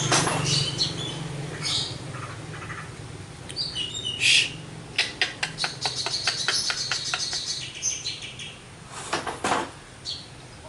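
Javan myna singing a varied song of chirps and whistled notes, with a quick run of clicking notes about halfway through and a harsh rasping call near the end.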